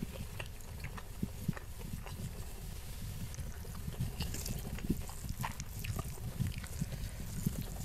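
Close-miked chewing of rice and Padang-style omelette, with many short, wet mouth clicks and smacks scattered throughout. Fingers squish and pick at the food on a banana leaf.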